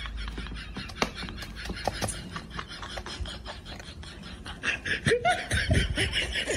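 A person laughing in quick, breathy bursts at the start and again near the end, with the sharp clicking crunches of a kitten chewing dry kibble in between.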